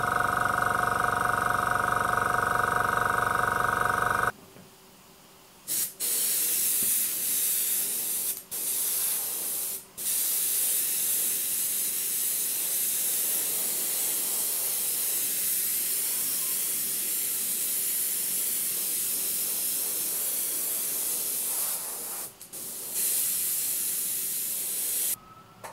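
The AS186 airbrush kit's small compressor runs with a steady hum and stops suddenly about four seconds in. Then a dual-action bottom-feed airbrush sprays body paint with a steady hiss, broken a few times by short pauses in spraying.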